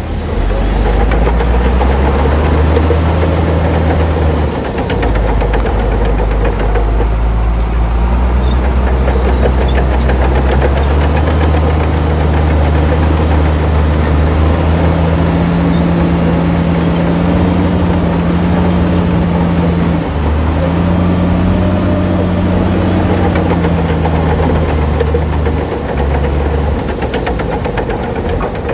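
Heavy diesel engine of earthmoving machinery running under load, its pitch stepping up and down several times.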